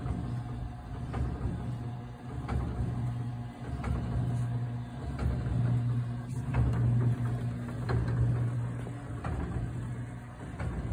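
A steady low machine hum that swells and fades every second or two, with scattered light clicks and knocks.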